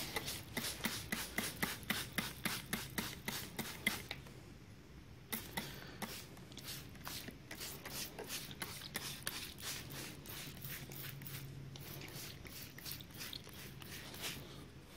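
Hand trigger spray bottle squirting a liquid onto steel plates in quick repeated squeezes, about three a second, with a pause about four seconds in before the spraying resumes.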